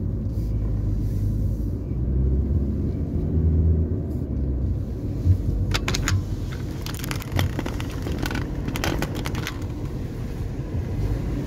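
Car driving at road speed, a steady low road and engine rumble heard from inside the cabin, with a few short clicks and rattles between about six and nine seconds in.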